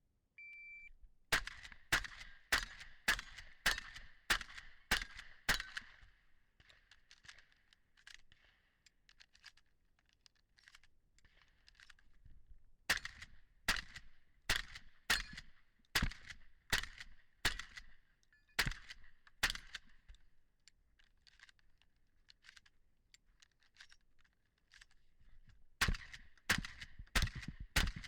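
A shot timer beeps once, then a Benelli Supernova pump-action 12-gauge shotgun fires runs of quick shots, each run lasting several seconds, with the clack of the pump action between shots. Fainter clicks and clatter between the runs are shells being loaded from the belt rig.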